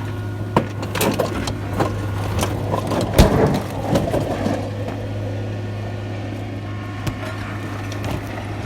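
Steady low engine hum from a vehicle running, with scattered knocks and metallic clatter, the loudest about three seconds in.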